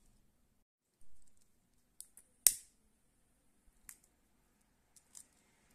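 Sharp clicks of a plastic lighter being flicked several times, the loudest about two and a half seconds in, with a few softer clicks after it.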